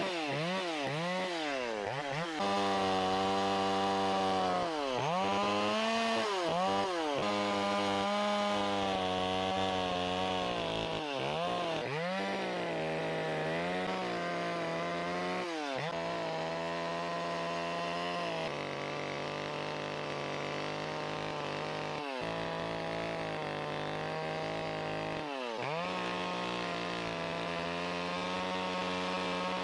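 Chainsaw running at high revs while carving a face into a wooden log, its engine pitch dipping briefly and recovering every few seconds.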